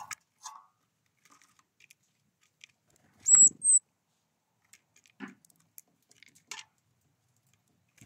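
Great tits at a feeder dish. Scattered light taps and clicks of beaks and feet on the dish and sunflower seeds, with two short, very high, thin calls just past three seconds in, the loudest sounds. Soft wing flutters come as birds arrive and leave.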